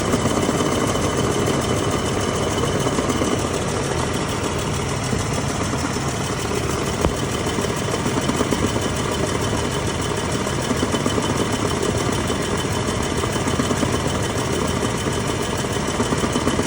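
Vehicle idling steadily with a noise the owner puts down to its 4L30E automatic transmission. A single sharp click comes about seven seconds in.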